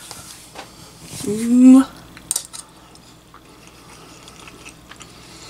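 Metal spoon clinking and scraping against a bowl as food is scooped up, with one sharp clink a little over two seconds in. About a second in comes a short hummed "mm" that rises in pitch, the loudest sound.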